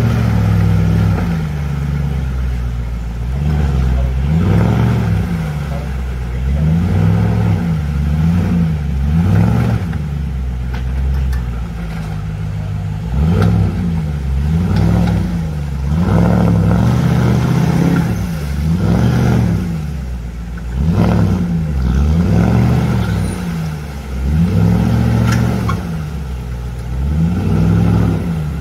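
Off-road 4x4 engine revving up and falling back again and again, every second or two, with some light clatter.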